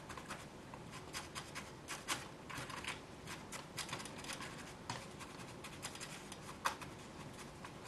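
Fingers pressing and tamping loose potting substrate into the cells of a plastic seedling plug tray: faint, irregular gritty scratching and crackling, with one sharper click about two thirds of the way through.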